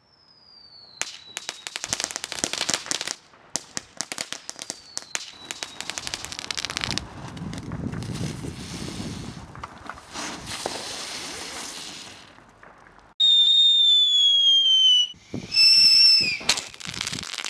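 Fireworks going off: twice a short falling whistle followed by rapid crackling of firecrackers, then a few seconds of rumbling hiss, then two loud high whistles of whistling fireworks near the end.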